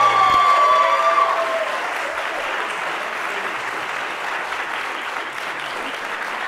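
Audience applauding steadily. The performer's final held sung note fades out in the first second and a half.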